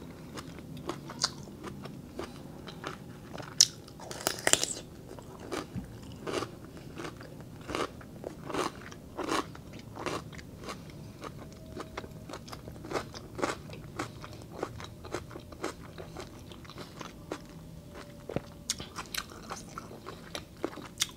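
A person biting and chewing a crunchy cucumber, with crisp, irregular crunches all through and the loudest ones about four seconds in.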